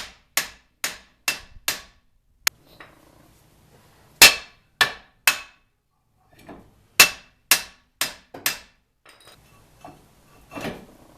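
Hammer blows on metal in short runs of two to five, each strike with a brief ring, with a duller knock near the end: a sticking, slightly seized brake caliper being knocked into place over new pads.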